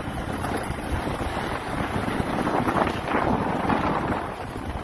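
Wind rushing over the microphone of a motorbike riding along a dirt road, with rumbling road noise underneath. It grows a little louder about halfway through.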